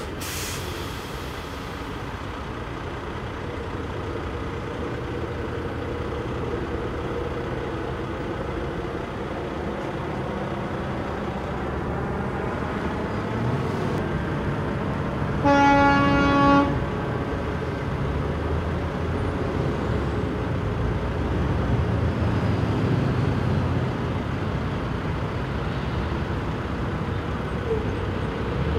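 Steady low rumble of vehicle engines, growing gradually louder, with one horn blast about halfway through: a single steady tone held for just over a second.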